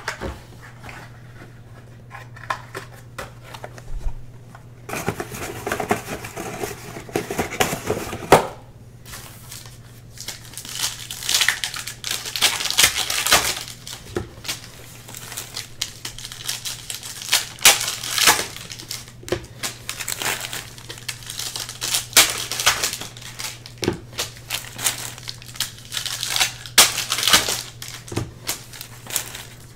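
Trading-card box and pack wrapper being torn open and crinkled by hand, with cards handled, in irregular crackling bursts that start about five seconds in and continue to the end.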